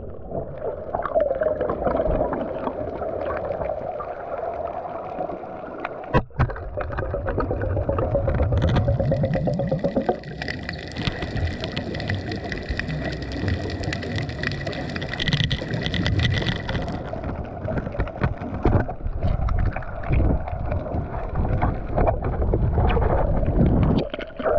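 Boat engine and propeller noise heard underwater through a GoPro's housing: a muffled, wavering drone, joined from about 9 seconds in by a higher steady whine that stops about 8 seconds later. A single sharp knock sounds about 6 seconds in.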